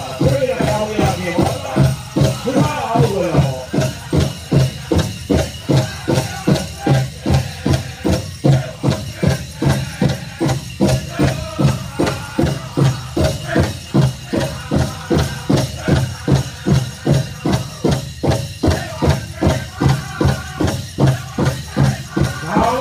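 Powwow drum group striking the big drum in a steady beat of about two strokes a second for a grand entry song, with high singing voices over the drum in the first few seconds and again near the end.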